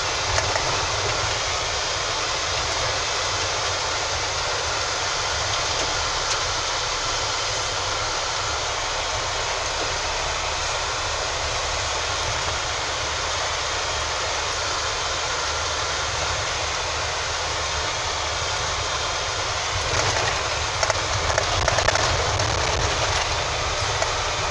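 Vehicle driving along a rough dirt road, heard from inside the cab: a steady drone of engine, tyre and road noise, with a few louder knocks near the end.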